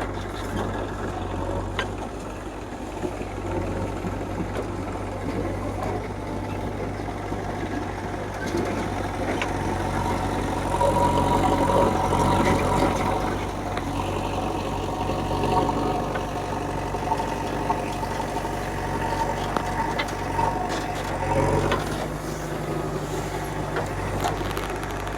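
Diesel engines of a JCB 3DX backhoe loader and tractors running steadily. About ten seconds in, the sound grows louder for a few seconds and a whine rises over the engine noise.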